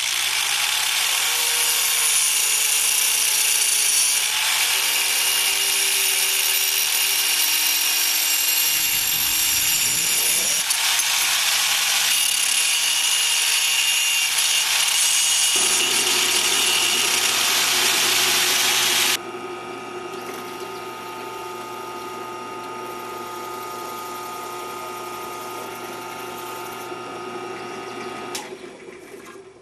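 Angle grinder grinding the metal mounting bracket off a small pull-type solenoid: a loud, steady grinding for about the first two-thirds. It then cuts off suddenly, giving way to a quieter benchtop drill press running with a steady hum as it drills into a 3D-printed plastic part, stopping near the end.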